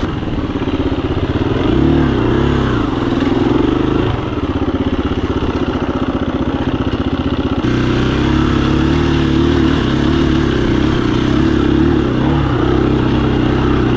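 KTM 350 EXC-F dirt bike's single-cylinder four-stroke engine running under way, its pitch rising and falling with the throttle.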